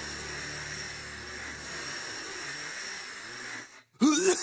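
Long steady hiss of an asthma inhaler being puffed and breathed in. It cuts off suddenly just before the end, and a short gliding vocal sound follows.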